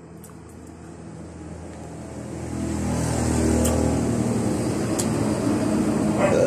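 A motor vehicle engine approaching and growing louder over a couple of seconds, then running loud and steady, with a couple of short clicks over it.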